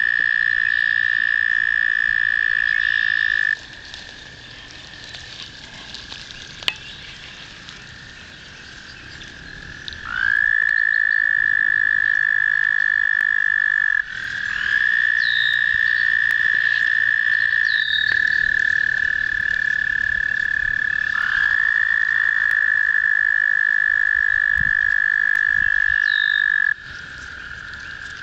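American toads trilling: long, steady, high-pitched trills that each last several seconds. Several toads overlap at slightly different pitches, with short quieter gaps between the choruses.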